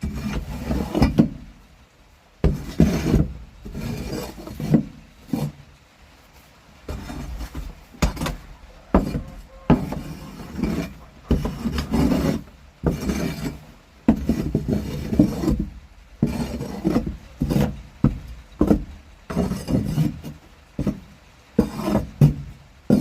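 Repeated scraping and scooping strokes through wood-shaving bedding, roughly one stroke a second with a few short pauses.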